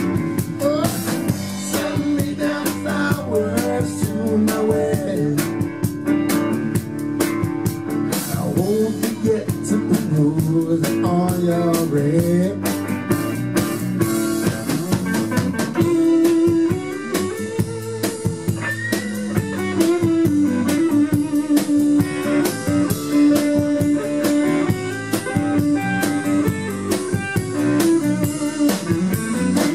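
Live blues-rock band playing an instrumental passage: an electric guitar lead with bending notes over bass guitar and drum kit.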